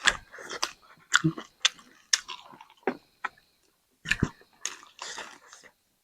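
Close-miked mukbang eating: a person chewing and biting into spicy chicken, with irregular sharp clicks and wet mouth smacks.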